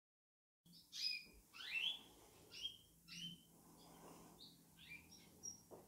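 Caged canaries chirping: a string of short, downward-sweeping calls at irregular intervals, starting about half a second in.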